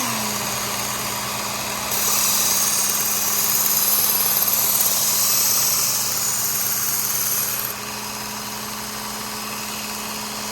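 Work Sharp Ken Onion Elite belt sharpener, with its blade grinding attachment, running with a steady motor hum. From about two seconds in, a knife blade is ground on the 200-grit Trizac abrasive belt, adding a loud hiss that eases off a few seconds before the end.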